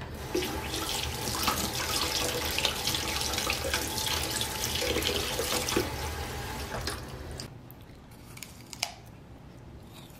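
Water running from a kitchen tap in a steady stream, turned on about half a second in and stopping about seven and a half seconds in. Near the end there is one short, sharp click.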